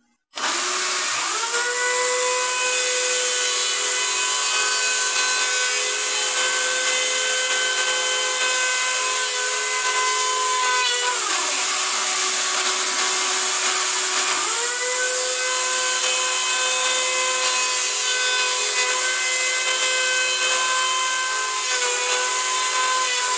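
Drill Master electric hand planer shaving a weathered oak pallet board. Its motor whine spins up about a second in, winds down near the middle and spins up again a few seconds later, over the steady rush of a shop vacuum pulling chips through a hose on the planer.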